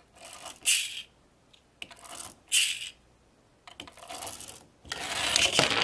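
Toy packaging being handled between surprise eggs: four short bursts of crinkling and rattling, each under a second.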